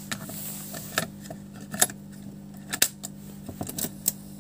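A plastic audio cassette clicking and knocking against the metal frame of an old car cassette deck mechanism as it is pushed in and seated: about five sharp clicks, over a steady low hum.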